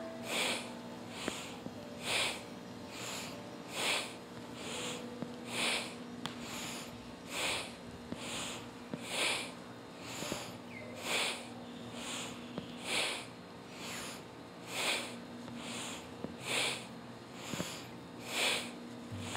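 A person breathing strongly and rhythmically, a full inhale or exhale about every second, each breath paced with an alternating knee-to-chest and arm-overhead movement in a Kundalini yoga kriya.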